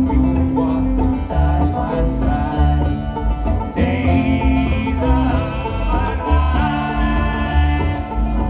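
Live bluegrass band playing loudly through a theatre sound system: banjo, acoustic guitar and upright bass.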